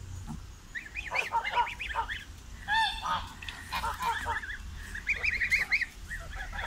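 Grey geese calling: a string of short, quick honks, with one louder, fuller honk about three seconds in.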